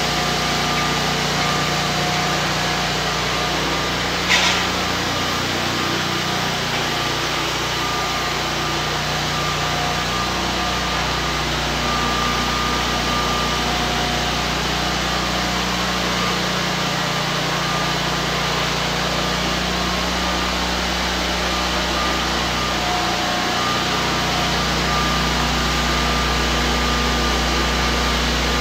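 Walk-behind concrete floor grinder and its hose-connected dust extractor running steadily, grinding an old paint-chip coating off a garage floor. One sharp knock comes about four seconds in.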